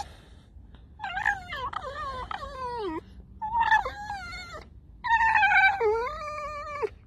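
Tame red fox making squeaky, whining calls: three drawn-out calls with wavering pitch that bends down at the ends, the last the longest.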